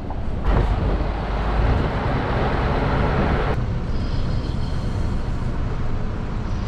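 Scania R-series V8 lorry engine running low and steady, heard inside the cab, with a rush of tyre and road noise that falls away about three and a half seconds in.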